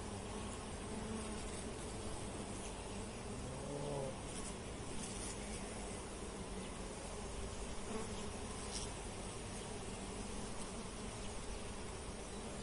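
Steady buzzing of insects, with one buzz rising and falling in pitch about four seconds in.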